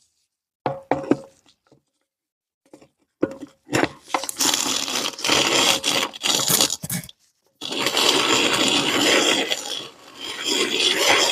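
Kinetic sand being ground through a meat grinder: a few knocks, then two long stretches of gritty scraping and crunching with a short break between them.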